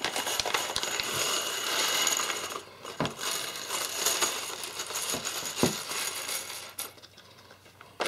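Plastic zip bag crinkling and many small plastic Anderson PowerPole connector housings and metal contacts clattering out onto a wooden desk, with a few louder knocks. It quiets near the end.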